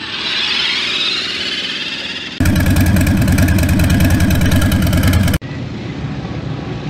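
A motorcycle engine running loud with a fast, even firing beat for about three seconds, then cut off suddenly, leaving quieter street background.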